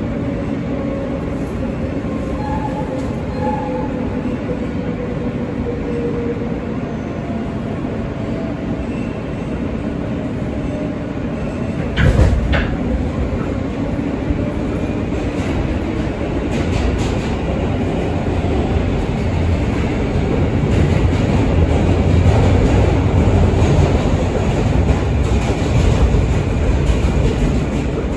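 NYC Subway L train car heard from inside while running on the track: a steady rumble with a faint motor whine falling in pitch over the first few seconds. About twelve seconds in there is a sudden loud bang, and the rumble grows louder in the second half.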